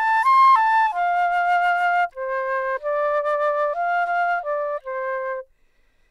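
Instrumental music: a slow solo melody of held notes, one note at a time, stepping gradually lower in pitch and stopping about five and a half seconds in.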